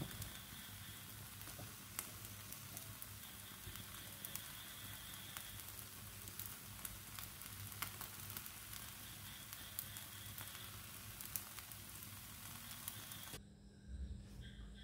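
Sweet jaggery cheela batter frying in desi ghee in a nonstick pan, a faint steady sizzle with small scattered pops and crackles. The sizzle stops suddenly near the end, leaving quiet room tone.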